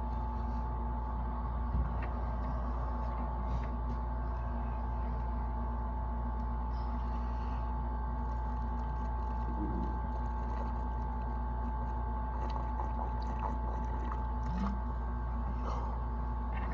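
Steady low hum and background noise with a faint thin high tone, broken only by a few faint brief sounds.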